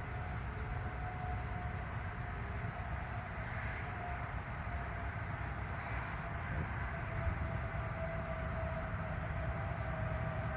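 Steady hiss of background noise with a constant high thin whine through it, the sound of a recording made at too low a volume. The uploader says it sounds like crickets.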